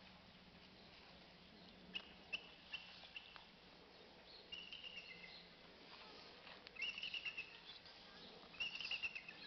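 Faint chirps and short trills of small birds, coming in several bursts from about two seconds in, with a few sharp clicks among the first ones, over a steady low background hum.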